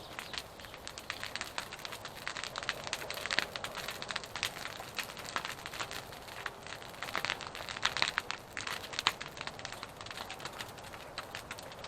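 Bonfire crackling, with irregular sharp snaps and pops.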